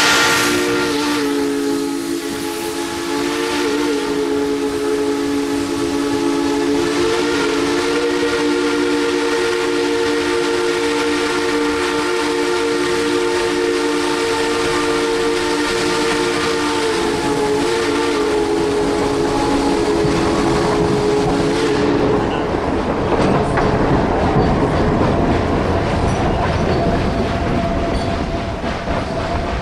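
Tweetsie Railroad No. 12 steam locomotive's chime whistle sounding one long, several-note blast with slight dips in pitch. It cuts off a little over twenty seconds in, leaving the rumble and clatter of the passenger cars rolling past on the rails.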